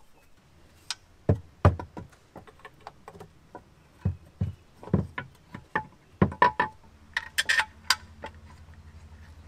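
Irregular clicks and knocks of a hard plastic intake cover and metal parts being handled and seated onto the carburetor of a two-stroke jet ski engine. A low steady hum starts near the end.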